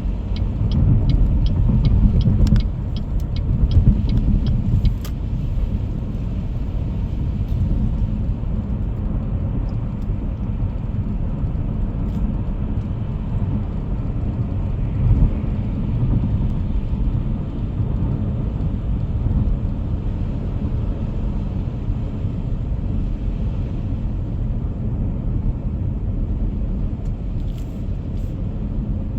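Steady low road rumble and tyre noise of a car driving at freeway speed, heard from inside the car, with a quick run of light ticks over the first three seconds.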